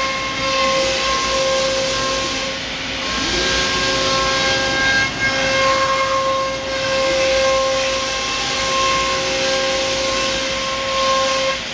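Selexx Chief CNC router cutting cabinet parts out of a sheet with a half-inch bit. It makes a loud, steady hiss with a high whine that fades in and out, and a lower tone that rises and falls now and then.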